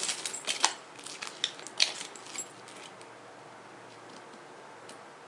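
A tape measure and a nylon strap panel being handled: a run of light clicks and rustles over the first two and a half seconds as the tape is pulled out and laid along the strap, then quiet.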